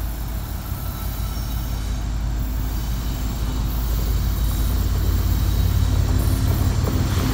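Diesel locomotives of a CN freight train approaching at low speed: a steady low engine drone that grows slowly louder.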